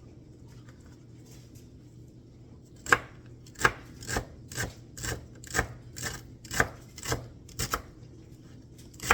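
Kitchen knife chopping celery: quiet at first, then steady, even strokes at about two a second from about three seconds in.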